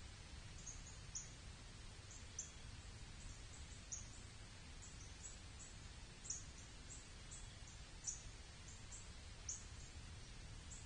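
Small birds giving short, high chip calls, repeated irregularly a few times a second, over a faint low rumble.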